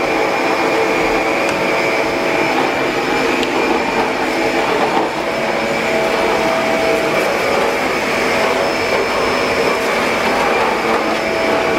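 Vacuum cleaner running steadily, a constant motor whine over a rushing hiss.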